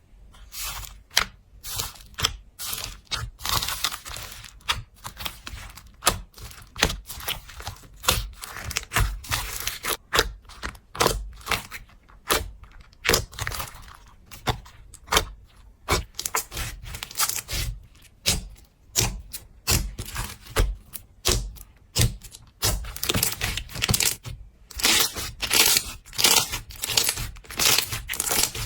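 Slime being squeezed and pressed by hand, giving an irregular run of crackles, pops and squishes.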